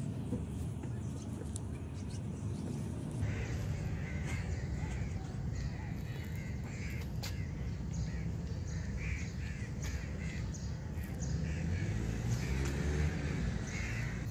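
Crows cawing again and again, starting a few seconds in, over a steady low rumble.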